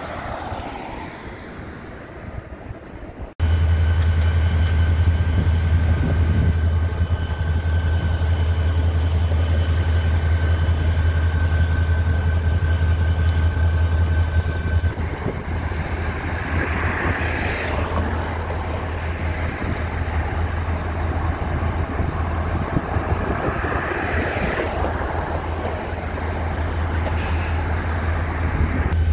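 About three seconds of open-air wind and traffic, then CSX diesel-electric locomotives running: a loud, steady low engine hum with a thin steady whine over it. In the second half the hum carries on under wheel-and-rail noise that swells twice.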